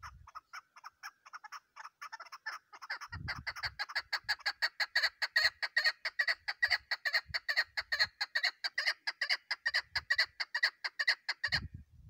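Female chukar partridge calling a long, rhythmic series of short chuck notes that quickens and grows louder about three seconds in, then stops abruptly near the end.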